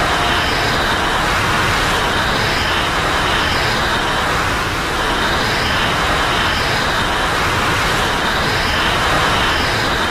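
Godzilla Terrestris monster sound effect: a steady, loud, rough noise with faint higher tones coming back in pairs about every three seconds.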